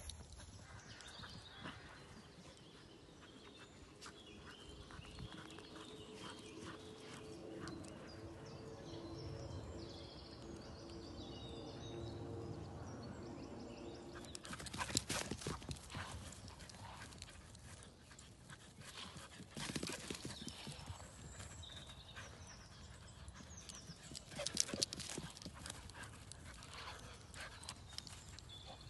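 Dogs running and playing on grass: quick paw thuds and scuffling, in three louder bursts in the second half.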